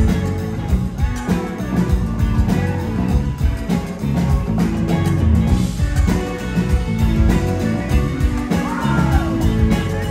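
Live rock band playing an instrumental stretch of a reggae-flavoured cover song, with electric guitars, bass, keyboard and drums with a regular beat.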